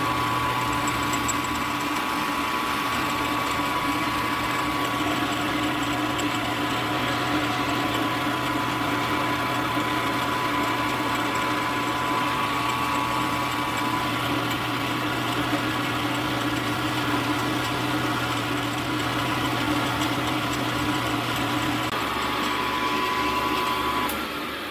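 Milling machine running steadily with a hum and a whine while the end mill takes a light skim cut across the top of the vise's soft jaws to set a new zero; the machine shuts down near the end.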